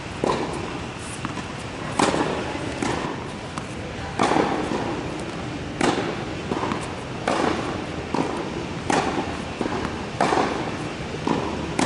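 Tennis balls struck by a racket in a rally on an indoor hard court: a sharp pop about every second and a half, with the quieter knock of the ball bouncing between hits, echoing in the large hall.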